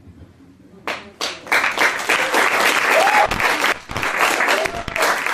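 Audience applauding: a couple of scattered claps about a second in, then the whole room breaks into full, steady applause.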